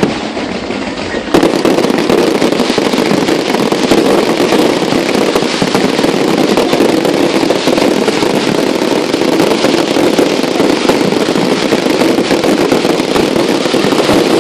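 Fireworks going off in a dense, continuous barrage of rapid bangs and crackles. It starts abruptly about a second in, after a single sharp crack.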